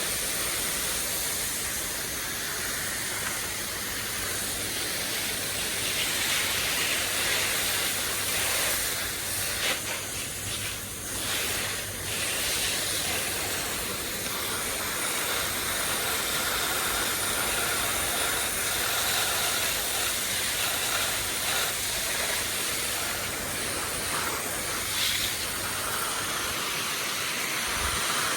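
Steady hiss of water spraying from a garden hose onto plants.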